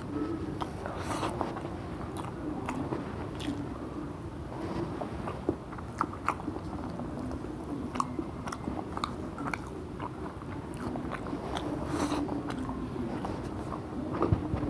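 A person chewing and eating a mouthful of mutton dum biryani, with many short, irregular mouth clicks and smacks.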